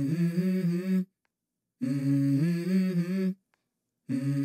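Intro music: a short hummed vocal phrase of held notes stepping up in pitch, played about three times with abrupt silent gaps between repeats.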